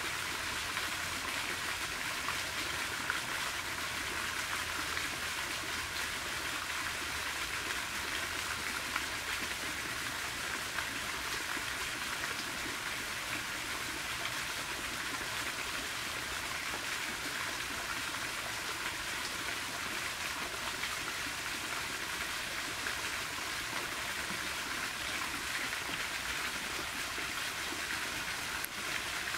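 Garden fountain jets splashing steadily into a pond: an even, continuous rush of falling water.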